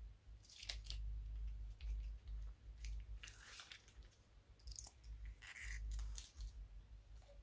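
Slime being squeezed from a plastic piping bag into a bowl: squishy, crackly squeezing and crinkling of the plastic bag in several short bursts, over a low handling rumble.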